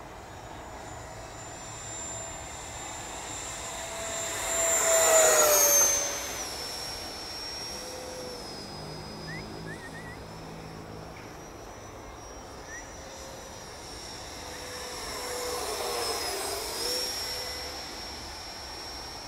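Electric ducted fan of an Arrows Hobby BAE Hawk model jet whining as it flies past twice. The first pass, about five seconds in, is the louder, its pitch dropping as it goes by; a second, quieter pass comes about three quarters of the way through.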